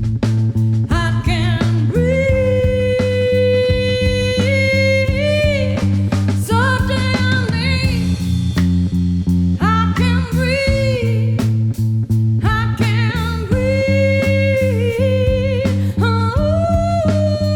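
Live band music: a singer holding long, wavering notes over guitar and bass guitar.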